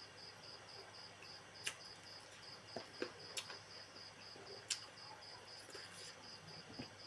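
A cricket chirping steadily in short high-pitched pulses, about four a second, with a few sharp clicks over it.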